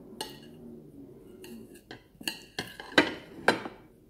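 Knife slicing an onion on a ceramic plate: the blade clicks sharply against the plate a number of times at uneven intervals, the loudest two clicks near the end.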